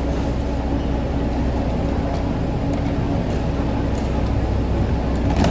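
A Thaco coach's engine idling steadily, a constant low hum, with a few faint clicks of suitcases being handled.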